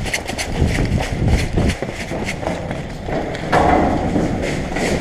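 Hurried footsteps of a person moving on foot, an irregular run of short knocks and clicks; a steady rushing noise joins about three and a half seconds in.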